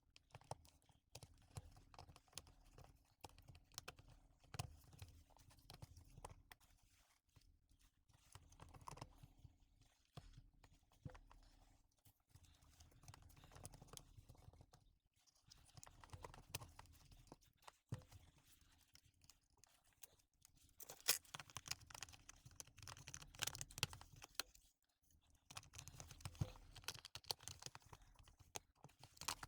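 Faint, irregular clicking and rustling of small plastic and metal parts being handled and fitted during reassembly of a cordless impact wrench, busier for a few seconds past the two-thirds mark.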